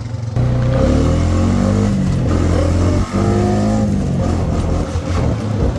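ATV engine under way with its pitch rising as it accelerates. The sound breaks off briefly about three seconds in, then the engine runs on steadily.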